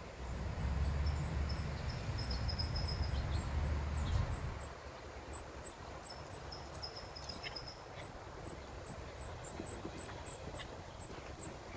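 Insects chirping: short, high-pitched chirps repeating a few times a second, with brief runs of quicker chirps slightly lower in pitch. A low rumble runs under them for the first four seconds or so.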